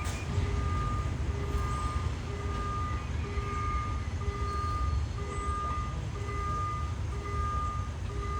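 A heavy engine rumbles low and steady, typical of a diesel train idling at the platform. Over it an electronic warning beep repeats about once a second.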